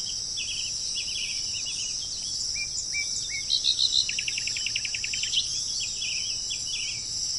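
A steady, high-pitched insect chorus with several birds chirping and whistling over it in short calls, including a rapid trill of about ten notes a second from about four seconds in.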